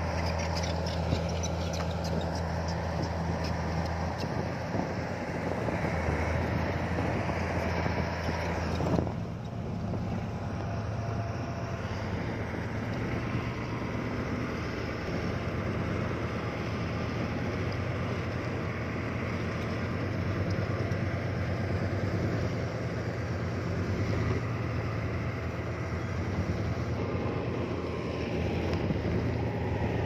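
Heavy diesel earthmoving machinery running with a steady, deep engine drone; about nine seconds in the sound changes abruptly to a different engine note.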